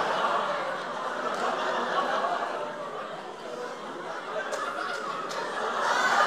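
Audience laughing throughout a hall, easing off in the middle and swelling again near the end.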